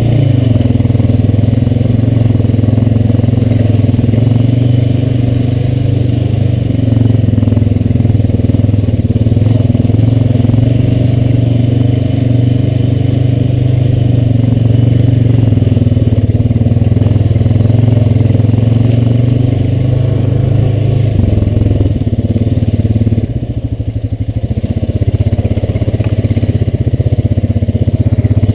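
Honda Rancher 420 ATV's single-cylinder four-stroke engine running steadily as it rides along. The sound dips briefly about three-quarters of the way through, then picks back up.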